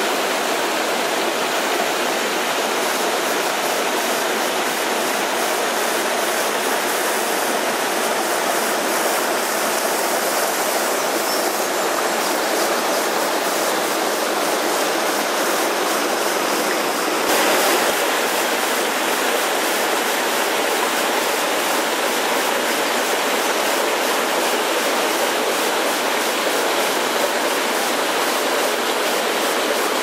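Mountain stream rushing over rocks in small cascades: a steady, loud rush of water, briefly a little louder a little past halfway.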